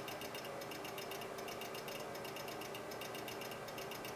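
A fast, even ticking, several ticks a second, over a steady low hum, as of a small machine running.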